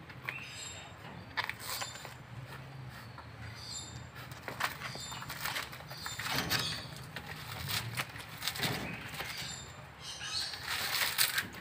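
Sun bear biting and tearing at a coconut husk: irregular crunches and rips of fibrous husk, with the loudest run of tearing near the end.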